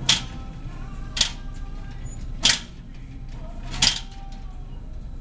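Four sharp clicks from the latches of a glass-door showcase cabinet, about a second and a quarter apart.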